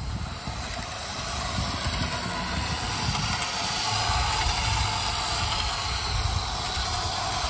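O gauge model diesel locomotive running along its track, a steady rolling rumble and hiss of wheels on rail and motor that grows louder over the first few seconds and then holds.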